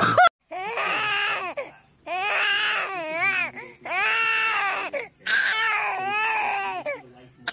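Infant crying: four long wailing cries in a row, each about a second and a half, with short breaths between them.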